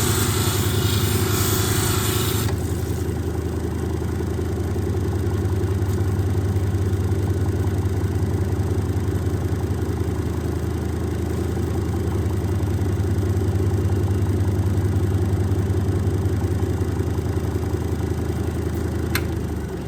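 Steady motor hum of a 6-inch Kingsley North cabbing machine running as malachite is polished on it. For the first two seconds or so a loud hiss rides over the hum, then stops. Near the end there is a single click.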